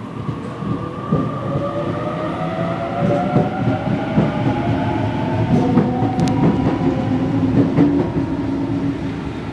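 Sydney Trains Waratah (A-set) double-deck electric train pulling away, its traction motors whining in several tones that climb slowly in pitch as it accelerates, with wheels clicking over rail joints. Loudest in the middle, fading near the end as the train draws off.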